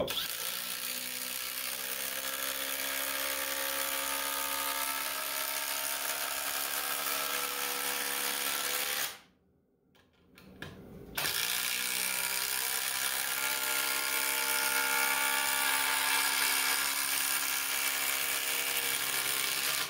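A 24-volt brushless cordless impact driver running flat out on high and hammering a long screw into wood, its pitch slowly sagging. It stops about nine seconds in and starts again two seconds later for a second long drive.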